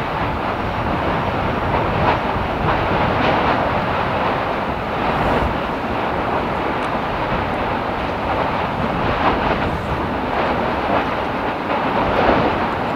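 Lava fountains spattering and churning at an erupting vent: a steady rushing noise full of quick crackles and splashes as molten lava bursts up and falls back.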